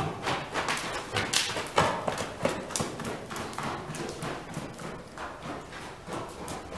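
Hoofbeats of a ridden horse moving around a dirt-floored indoor arena: a quick, uneven run of thuds and clicks, several a second.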